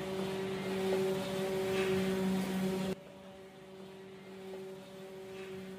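A steady, unchanging humming drone at one pitch with overtones above it, dropping sharply in loudness about three seconds in while holding the same pitch.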